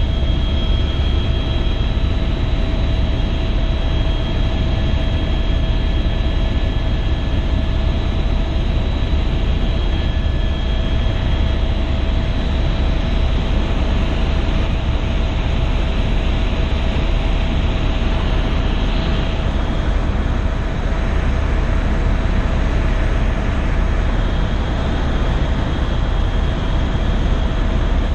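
Helicopter in flight heard from inside the cabin: a steady, loud low rumble of rotor and engine with a constant whine running over it.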